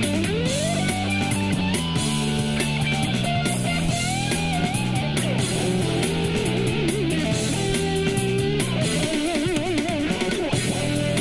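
Solid-body electric ukulele playing a lead melody, with a slide up into the first note and wavering vibrato on long held notes, over a backing track of drums and chords.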